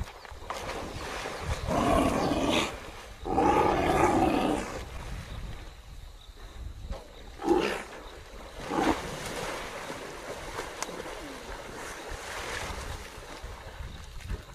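Big cat roaring: two long, loud roars about two and four seconds in, then two short, sharp snarls later on, over a steady low rumble.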